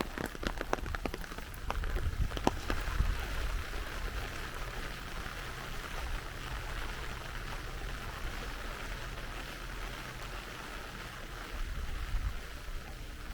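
Rain falling steadily, a continuous hiss, with drops tapping sharply in the first few seconds. A low rumble comes and goes under it twice.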